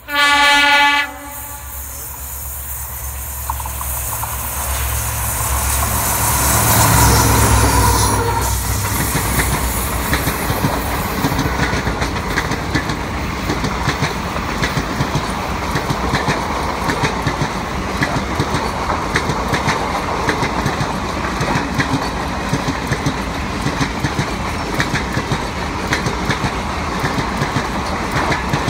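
WDP4D diesel-electric locomotive sounding its horn for about a second, then its EMD 16-710 two-stroke engine rising as the locomotive comes closer, loudest and passing by about eight seconds in. After that, the passenger coaches' wheels clatter steadily and rhythmically over the rail joints as the long train rolls past.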